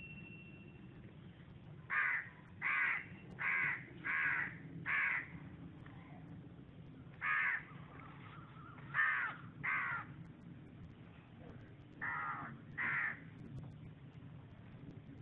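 A crow cawing: a run of five caws starting about two seconds in, then a single caw and two pairs.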